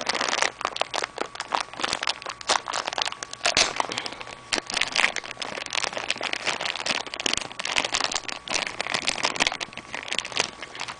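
Thin clear plastic bag crinkling and crackling as it is handled and pulled open by hand, a continuous run of small crackles.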